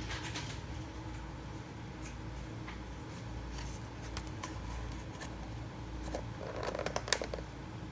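Light handling noise: scattered soft clicks and rustles over a steady low hum, thickening into a cluster of clicks with one sharp click about seven seconds in.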